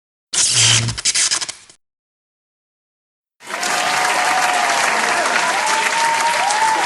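A short noisy burst of about a second and a half, then silence, then, about three and a half seconds in, a crowd applauding and cheering, with rising and falling whistles over the clapping.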